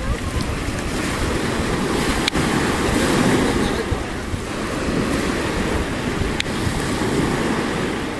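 Mediterranean surf washing onto a pebble beach, with wind buffeting the microphone; two faint sharp clicks stand out, one about two seconds in and one near six seconds.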